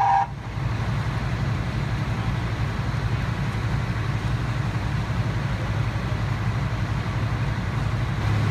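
Diesel engine of a pumper fire engine running steadily under pump load, a constant low drone. A higher horn-like tone cuts off just after the start.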